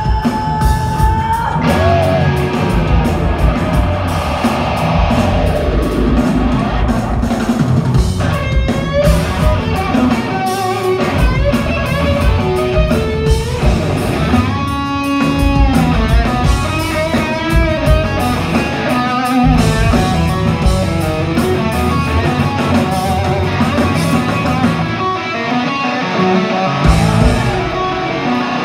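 Rock band playing live: an electric guitar solo with bent, wavering notes over drums and bass, heard from the crowd in a concert hall.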